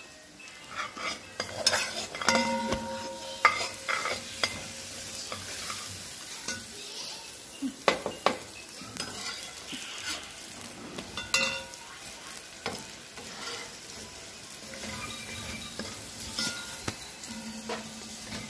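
Long metal spatula scraping and knocking against an iron tawa as a roti is pressed and turned, over a faint steady sizzle. Several louder clanks and a few short ringing metal clinks stand out, the loudest about two, three and a half, eight and eleven seconds in.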